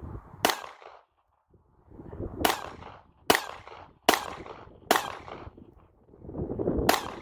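Glock 17 9mm pistol fired six times: one shot, a pause of about two seconds, four quick shots under a second apart, then one more shot near the end.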